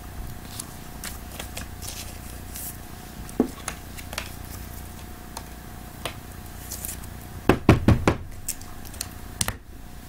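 Trading cards and their boxes being handled on a tabletop: scattered light clicks and taps, with a quick cluster of four or five sharper knocks about seven and a half seconds in and another knock near the end.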